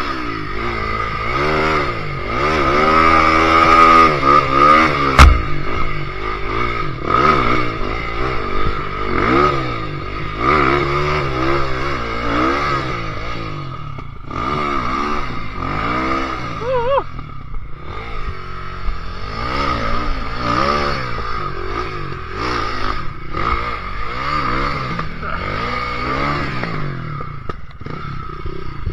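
Enduro motorcycle engine revving again and again, the pitch rising and falling with each blip of the throttle, with clattering from the bike. There is a single sharp knock about five seconds in.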